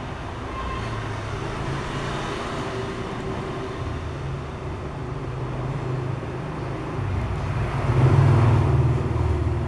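Aluminium three-bladed fidget spinner whirring as it spins in the hand on its bearing: a steady low hum that grows louder about eight seconds in.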